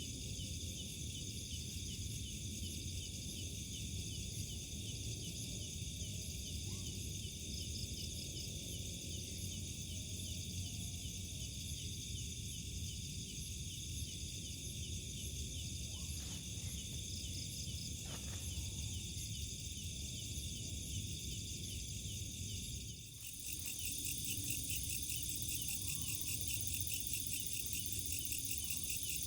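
Night insects, crickets among them, chirping in a dense, steady chorus of fast pulsing trills, over a low rumble. Near the end the sound breaks off briefly and the chorus comes back louder.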